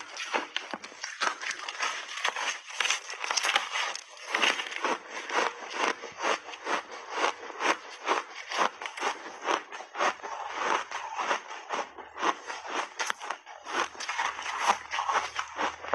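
Close-miked crunching of refrozen layered block ice with mixed berries, bitten and chewed: a dense, irregular run of sharp cracks.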